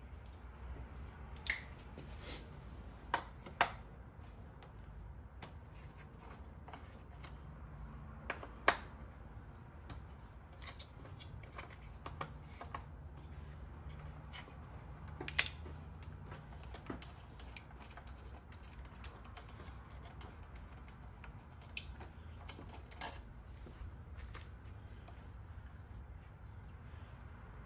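Scattered clicks and taps of a motorcycle's plastic bodywork panels and a small hand tool as the panels are handled and fitted, the sharpest about nine seconds in, over a low steady hum.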